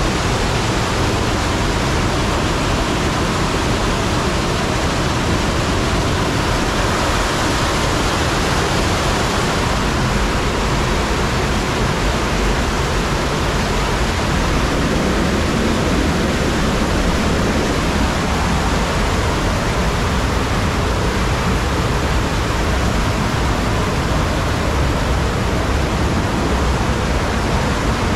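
Loud, steady rushing water inside a wet rock grotto.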